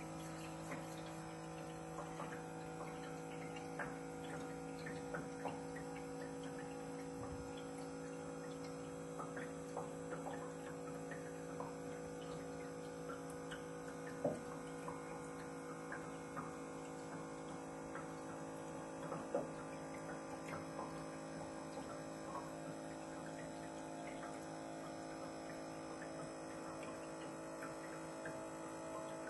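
Water-vapour electric fireplace humming steadily as its pump auto-feeds water into the tank, with scattered faint clicks and ticks.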